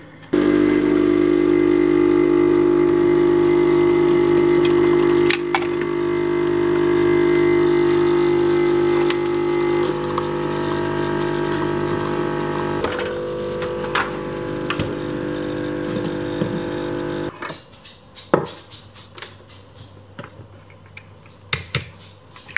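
Nespresso CitiZ capsule coffee machine brewing an espresso: its pump buzzes loudly and steadily, shifting in tone a few times, and stops about 17 seconds in. After that come a few light clicks and knocks of cups and the machine being handled.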